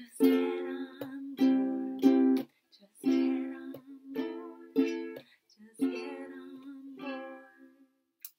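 Ukuleles strummed in a rhythmic chord pattern, the chords changing as the tune goes on, with the last chord left to ring out and fade near the end.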